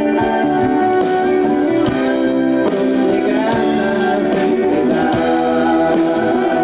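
Live rock band playing: electric guitar and drum kit, with a man singing.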